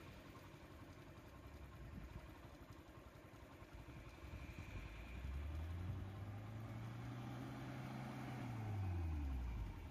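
A vehicle engine running. From about halfway its pitch rises and holds steady for a few seconds, then drops away near the end as it eases off.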